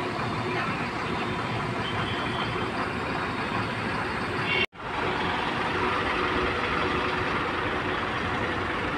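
Buses running and moving about a busy bus stand: a steady mix of engine and traffic noise. The sound cuts out for an instant about halfway through.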